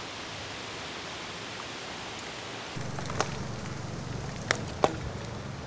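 Wind rushing over the microphone of a moving bicycle, an even noise. About three seconds in a low rumble joins it, with a few sharp clicks.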